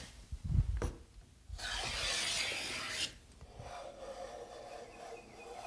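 Block plane shaving a light chamfer along the edge of a figured maple board. After a couple of low knocks, one long shaving stroke comes about a second and a half in, followed by fainter, longer scraping strokes.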